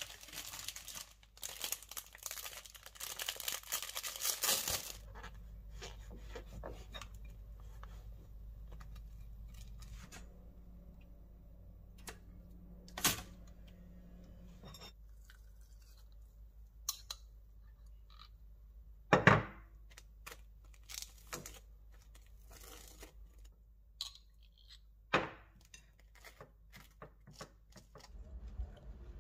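A knife sawing through a bagel on a plate for the first few seconds, a rough rasping. Then quieter kitchen handling as the bagel halves go into a pop-up toaster, with scattered clicks and a few sharp knocks.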